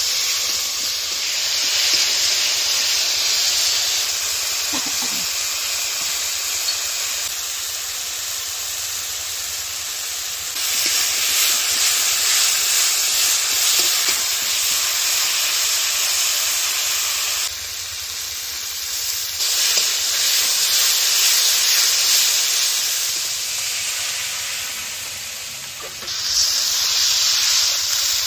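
Food sizzling as it fries in hot oil: a steady hiss that steps louder and softer in stretches of several seconds.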